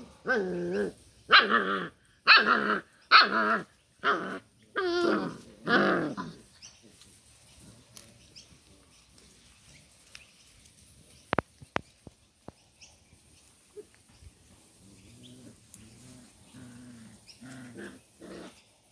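Doberman puppies play fighting, barking and growling: a quick run of about seven loud barks in the first six seconds, then quieter growls and whines, with a couple of sharp clicks partway through.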